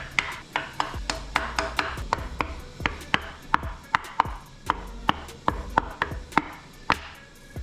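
Background music with a steady percussive beat of sharp clicks, about two to three a second, over a low bass line.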